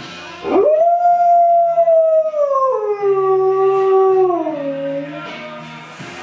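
Alaskan Malamute howling along to a song: one long howl that swoops up about half a second in, holds high, then drops in two steps and fades out just after five seconds.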